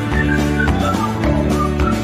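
Background music with a steady beat and a quick melody of short, high notes.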